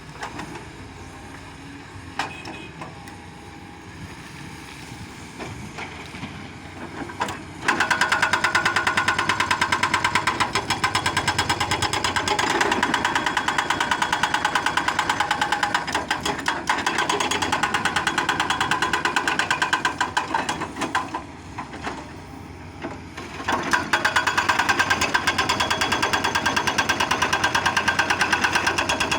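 Excavator-mounted hydraulic breaker hammering rapidly and steadily in two long runs: it starts about a quarter of the way in, stops briefly after about two-thirds, and starts again near the end. Before the first run, only the machine's lower, quieter running is heard.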